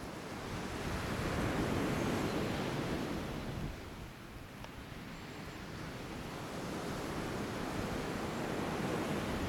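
Pacific Ocean surf washing onto the beach: a wash of noise that swells, falls away about four seconds in, then builds again.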